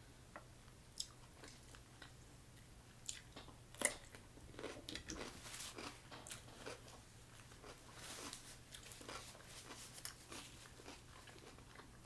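A person eating, heard close up: a sharp crunch about four seconds in, then chewing with many quick small clicks of the mouth.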